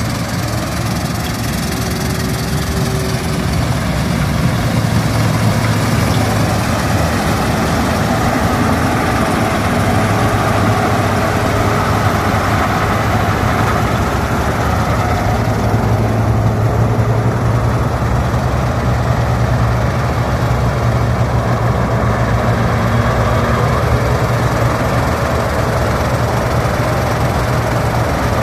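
Combine harvester running steadily: a loud, constant low engine drone with dense machinery noise over it.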